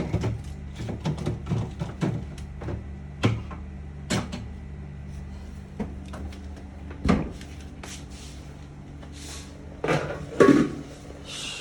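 Irregular knocks and clatter of objects being handled: a quick run of clicks at first, then separate knocks, with two louder ones near the end.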